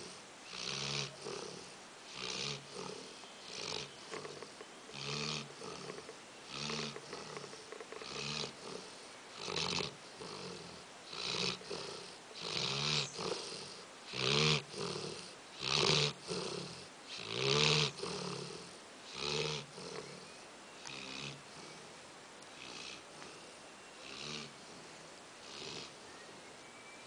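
Steady snoring of a sleeper, one snore about every one and a half seconds, each a low rumble with a breathy hiss. The snores grow louder through the middle and soften to fainter breaths over the last several seconds.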